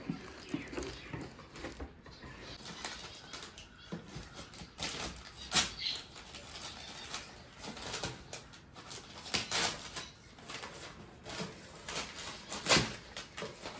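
Gift wrapping and packaging being handled and torn open: irregular crinkling and crackling, with sharper snaps about five and a half seconds in and again near the end.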